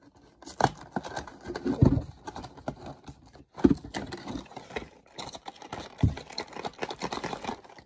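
Small cardboard headphone box being handled and pried open: irregular scraping and rustling of paperboard, with several sharp knocks as the box is gripped and moved.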